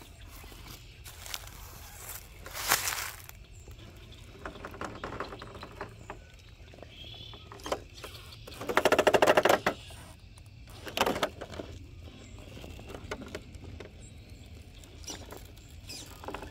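Traxxas TRX4 K10 RC crawler truck working its way over rocks: scattered clicks and scrapes of tyres and chassis on stone. About a second-long loud rapid rattle comes in the middle, with shorter ones before and after it, as the truck claws up a ledge.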